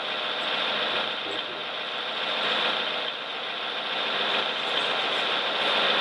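Radio-controlled model construction machines running: a steady, even mechanical engine-like drone with a faint rattle.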